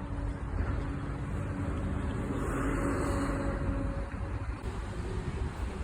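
Low, steady rumble of car engines and traffic, swelling briefly about halfway through.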